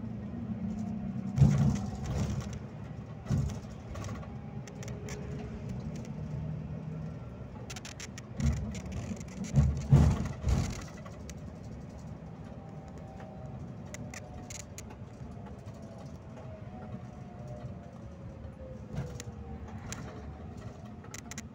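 Scania K360IB coach heard from the driver's area while on the move: a steady low engine drone with loud knocks and rattles a couple of times early on and again around the middle. In the second half a faint whine falls slowly in pitch.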